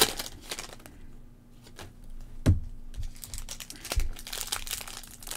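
Trading card packs and cards handled by hand: a wrapper crinkles and cards rustle. There are two sharp taps, about two and a half seconds and four seconds in.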